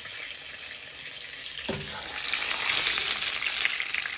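Flour-coated chicken thigh pieces sizzling in hot sunflower oil in a frying pan, a steady high hiss. There is a short knock about a second and a half in, and the sizzling swells louder soon after.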